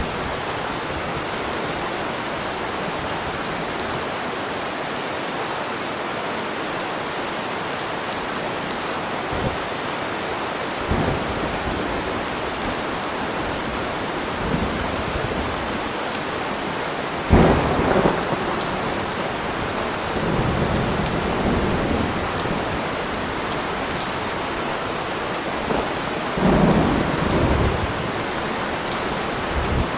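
Steady heavy rain hissing, with rolls of thunder rumbling in several times, the loudest crack-and-rumble about halfway through and another rumble near the end.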